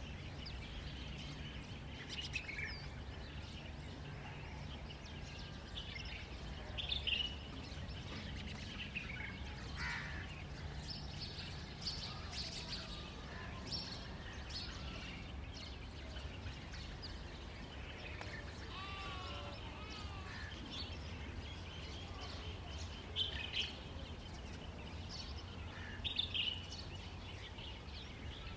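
Birds chirping and calling in scattered short phrases, a few calls louder than the rest, over a steady low hum.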